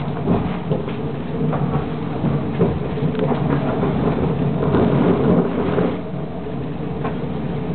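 Helsinki tram heard from inside the car as it runs slowly into the stop: a steady low rumble of wheels on rails and motors, with scattered short clicks and knocks from the track. It eases off a little about six seconds in as the tram slows.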